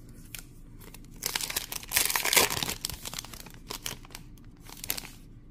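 Foil wrapper of a Topps Chrome trading card pack being torn open and crinkled. The crackling starts about a second in and is loudest around two seconds, with a brief smaller crinkle near the end.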